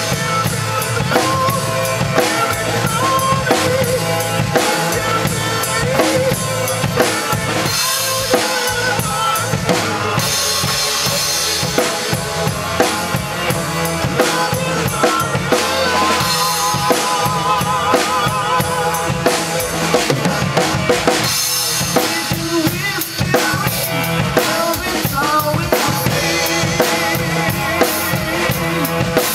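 Acoustic drum kit played live, with bass drum, snare and cymbal hits, along with a recorded song whose pitched parts carry on underneath. The groove shifts between 7/8 and 4/4.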